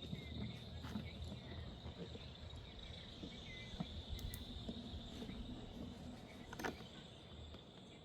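Insects trilling steadily in the background, with a few faint clicks, one a little louder near the end.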